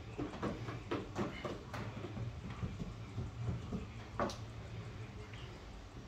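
A paint roller and roller tray being worked as black coating is rolled onto a boat hull: light scraping and rolling with a few sharp clicks, the loudest about four seconds in, over a steady low hum.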